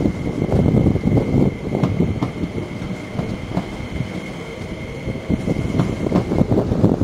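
SP-1900 electric multiple-unit train rolling slowly through the depot: a low rumble of wheels on rail with scattered clicks, and a steady high whine that stops near the end.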